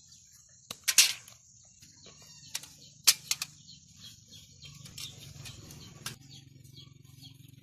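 A few sharp clicks and taps, the loudest about one second and three seconds in, over birds chirping in the background that grow busier in the second half.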